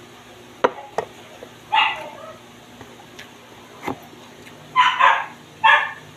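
A dog barking four times, once about two seconds in and three times in quick succession near the end. A few sharp knocks come in between.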